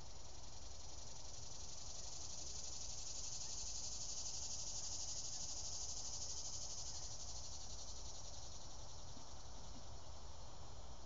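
A high, buzzing insect drone, like a cicada chorus, that swells and then fades over several seconds, over a constant low rumble.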